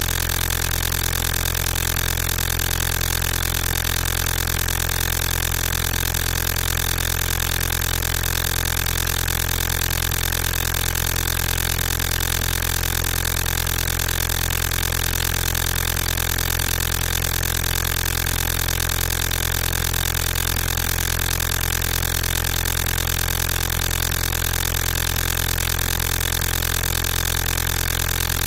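A steady, unchanging hum with hiss, level and pitch holding exactly the same throughout.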